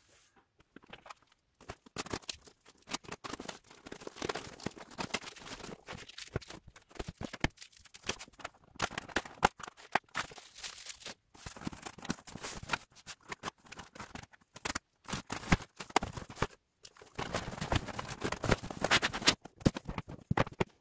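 A large cardboard box being cut open and unpacked: irregular rustling, scraping and tearing of cardboard and packing, with sharp knocks as a hard plastic gun case is pulled out and set on the table.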